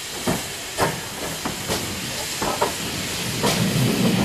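GWR 5700-class pannier tank steam locomotive running slowly: a steady hiss of steam with irregular exhaust chuffs over it, and a deeper rumble swelling near the end as it draws alongside.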